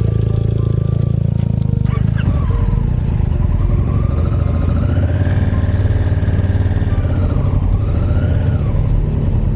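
Twin-cylinder adventure motorcycle engine running steadily, with a fainter tone gliding up and down above it.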